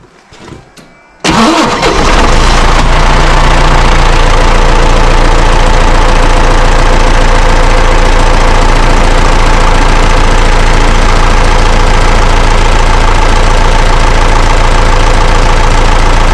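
A 6110 tractor's diesel engine starting on a newly installed battery: it fires about a second in, catches almost at once and settles into a steady idle.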